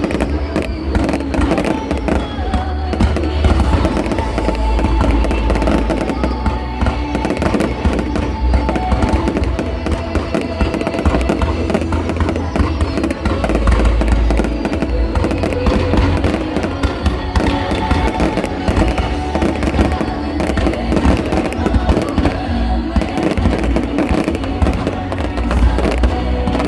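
Fireworks display: a dense, continuous run of shell bursts with deep booms, mixed with music playing throughout.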